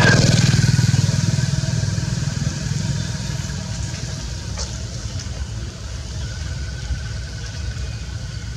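A small engine running, loudest at the start and fading over the next few seconds as it moves away.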